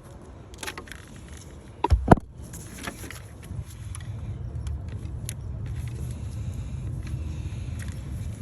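Tool clicks and knocks while a seized boost-solenoid vacuum fitting is pried at, with two sharp loud knocks about two seconds in. A steady low rumble sets in about three and a half seconds in.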